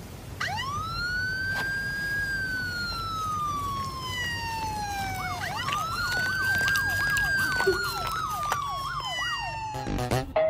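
Emergency-vehicle siren wailing: two long cycles, each rising quickly and then falling slowly in pitch. A faster up-and-down warbling siren joins in during the second cycle.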